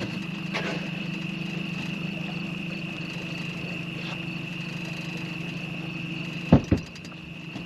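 Boat motor idling steadily, with two sharp knocks about six and a half seconds in.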